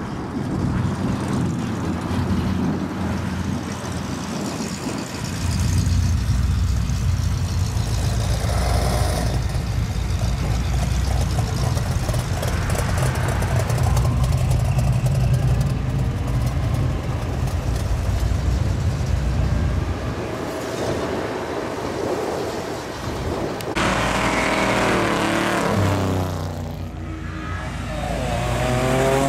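Car engines: a steady low engine rumble through most of it, then in the last few seconds cars driving off and past, their engine notes dropping and climbing in pitch.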